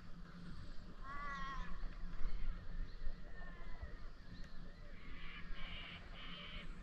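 A German shorthaired pointer whining: one drawn-out whine about a second in, then a run of short whimpers, about three a second, near the end.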